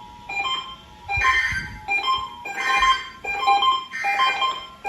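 Background music in short melodic phrases, each under a second long, with brief dips between them.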